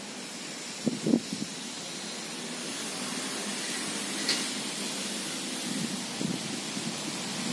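Steady rain falling on a pond's surface, an even hiss that grows slightly louder after a few seconds. A few short low thumps come about a second in, with another near the end.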